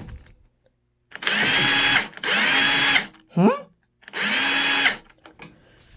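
Power drill run in reverse to back out the screws holding a control panel cover. It runs in three short bursts of under a second each, with a steady motor whine.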